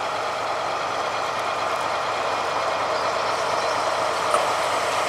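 Freightliner Class 70 diesel locomotive, with its GE PowerHaul V16 engine, passing slowly at close range, its engine running steadily. A single brief click about four seconds in.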